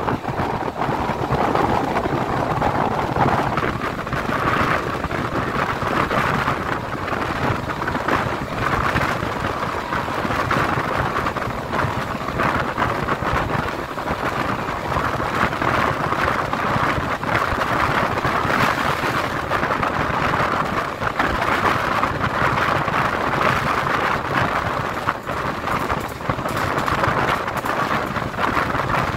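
Express passenger train in motion: a steady, loud rushing rumble of the wheels on the track.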